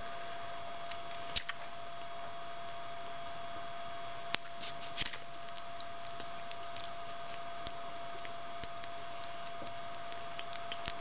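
Kitten suckling on a feeding-bottle nipple: small irregular wet clicks and smacks from its mouth, a few at a time, over a steady background hiss and hum.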